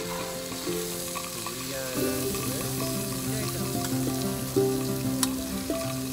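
Meat sizzling steadily on a hot tabletop grill pan, with two sharp clicks about halfway through. Background music with held notes plays over it.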